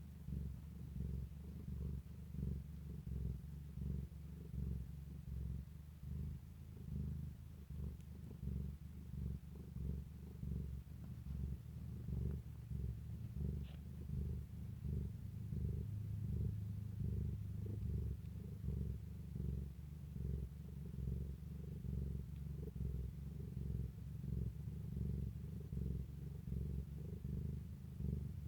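A cat purring steadily, a low purr that swells and eases with each breath, about once a second. A faint tick about halfway through.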